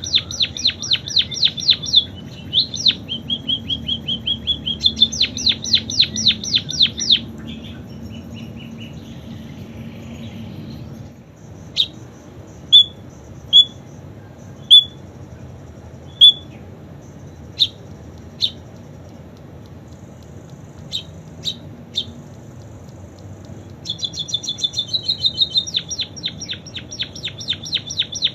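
A small songbird, a pipit tutored on canary song, singing canary-style trills: fast runs of evenly repeated high notes lasting several seconds. In the middle come isolated single sharp chirps with pauses between them, and near the end a trill starts again.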